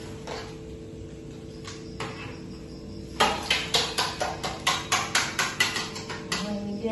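Metal kitchen utensils knocking together: a spoon tapping quickly on a perforated metal skimmer above a wok, about four sharp clacks a second for roughly three seconds, starting about three seconds in.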